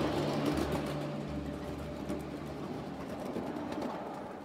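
1/8-scale ride-on miniature train running along its track, a steady running noise of the train that slowly grows quieter.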